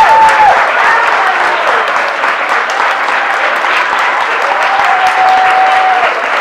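Audience applauding steadily, with a couple of long, drawn-out calls from voices in the crowd: one right at the start and another about five seconds in.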